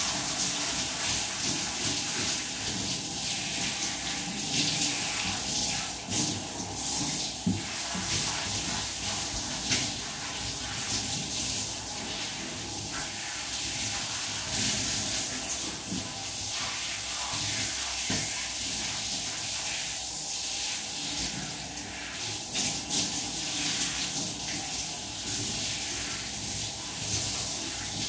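Handheld shower head running steadily, water spraying onto a dog being bathed and splashing in the shower.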